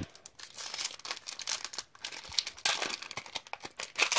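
Foil booster-pack wrapper of Pokémon trading cards being torn open and crinkled by hand: spurts of quick crackles, the loudest near the end.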